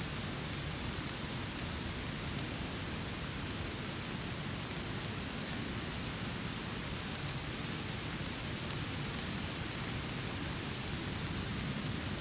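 Steady heavy rain: an even, unbroken hiss.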